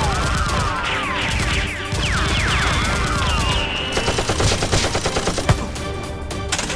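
Sci-fi ray-gun sound effects: a string of swooping zaps that fall and arch in pitch. About four seconds in, they give way to a rapid burst of dubbed machine-gun fire lasting about a second and a half.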